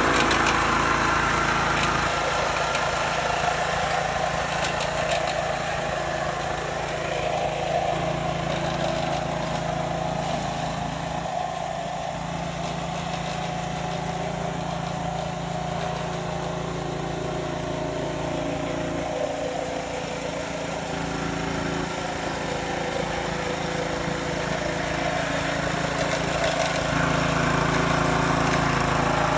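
Engine of a Kawasaki TB70 flail-shaft grass mower running steadily under test, easing off a little in the middle and picking up again near the end.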